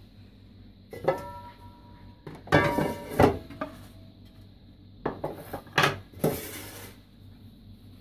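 Stainless steel bowl and pots clanking against each other and the kitchen counter: a knock about a second in, a cluster of clatters around the middle, and a few more later on, some followed by a short metallic ring.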